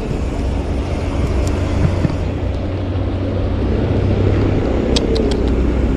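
A motor vehicle's engine running nearby: a steady low drone that grows slowly louder, with a few faint clicks about five seconds in.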